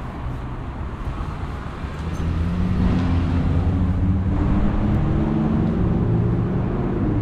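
Motor vehicle engine running close by, a low steady hum that comes in about two seconds in and climbs slowly in pitch, over city traffic rumble.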